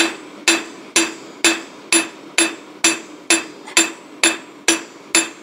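Ball-peen hammer forging a small piece of heated steel held in bolt cutters on a rusty steel block used as an anvil. A steady run of about a dozen blows, roughly two a second, each ringing briefly.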